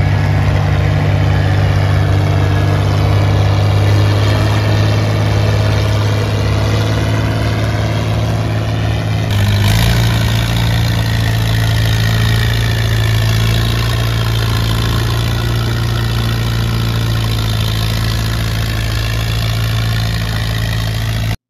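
Vintage farm tractor engine running steadily under load while pulling a weight sled: first an Oliver, then, after an abrupt change about nine seconds in, an Allis-Chalmers at a slightly different steady pitch. The sound cuts off suddenly near the end.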